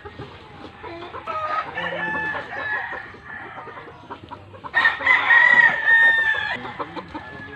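Gamecock roosters crowing: two crows, the second louder, starting about five seconds in.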